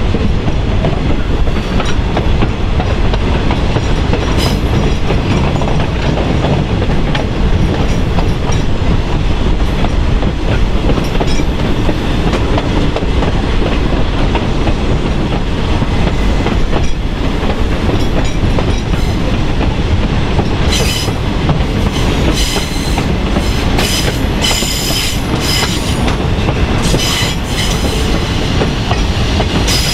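A freight train's cars rolling along the track, their steel wheels giving a steady loud rumble with occasional knocks. In the last third the wheels squeal on and off in high pitch.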